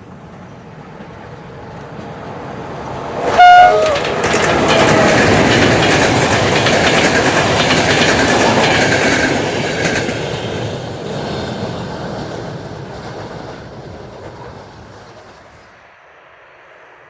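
A train passing on the line: a short, loud horn blast about three and a half seconds in, one note stepping down to a slightly lower one, then the train goes by with wheels rumbling and clattering over the rails, loudest for several seconds and fading away toward the end.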